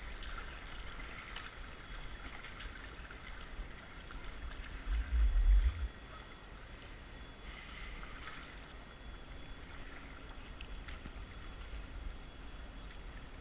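Creek water lapping and trickling around a plastic kayak as it drifts, with a brief loud low rumble about five seconds in.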